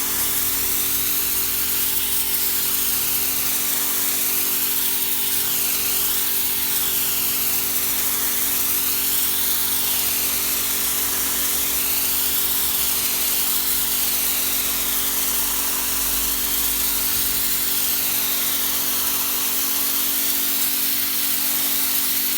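Pressure washer spraying a paving slab: a steady hiss of the water jet hitting the surface, wavering in tone as the wand moves, over the steady hum of the machine.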